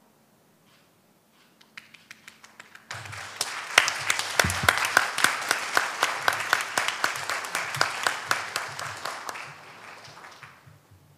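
Audience applauding: a few scattered claps first, then full, steady applause from about three seconds in that thins out and stops near the end.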